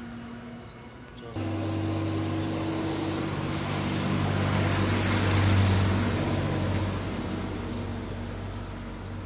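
A machine starts abruptly about a second and a half in and runs with a steady low hum, with a swell of louder noise near the middle that eases off again.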